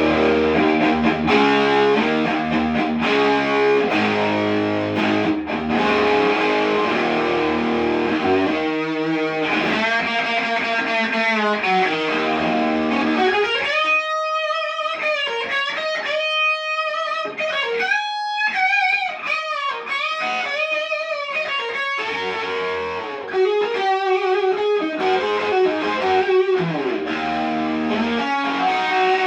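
Electric guitar played through a home-built Distortion+ style distortion pedal. Dense distorted chords open the passage. Around the middle come long sustained single notes that bend in pitch, and the chords return near the end.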